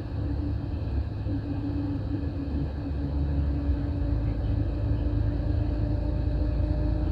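Steady engine drone and road rumble heard from inside a Greyhound coach cruising on the highway, with a steady low hum over the rumble.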